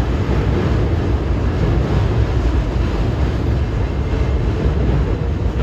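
Freight train of loaded flatcars rolling across a trestle bridge: a steady low rumble of wheels on rails.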